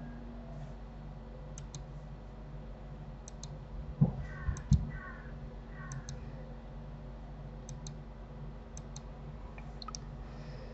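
Computer mouse clicking, mostly in quick pairs every second or two, over a steady low electrical hum. About four seconds in come two dull low thumps, followed by three short chirp-like squeaks.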